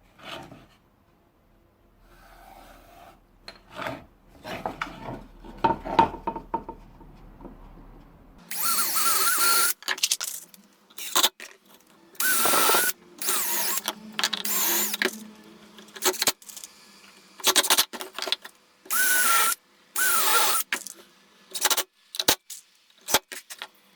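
Power drill run in a string of short stop-start bursts, its motor whining, drilling through a wooden workpiece. Scattered knocks and handling come before the drilling, which starts about eight seconds in.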